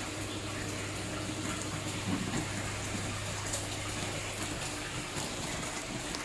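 Aquarium filter running: steady splashing and trickling of water into the tank, with a constant low hum.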